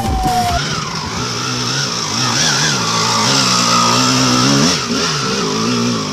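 Dirt bike engine revving up and down under load on a steep climb. Its pitch holds high for a couple of seconds, drops briefly, then rises again. The tail of a music track with a falling tone cuts off about half a second in.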